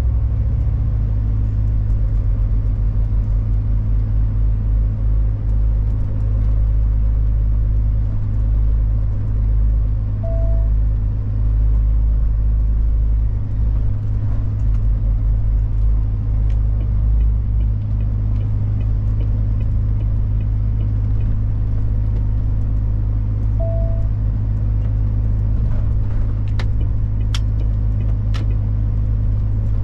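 Heavy truck's diesel engine running steadily under way, heard inside the cab as a low, even drone. A short beep sounds twice, about thirteen seconds apart, and a few sharp clicks come near the end.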